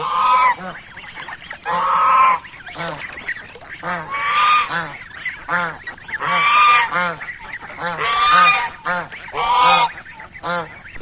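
White domestic geese honking on the water: loud honks about every two seconds, with softer, quicker calls in between.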